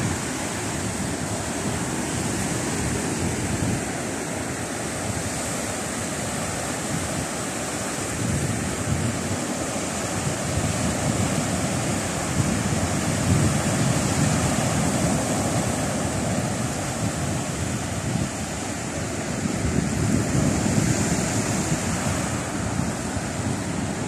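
Black Sea surf breaking and washing up a sandy beach, a steady rush of foam that swells and eases every few seconds, with wind buffeting the microphone.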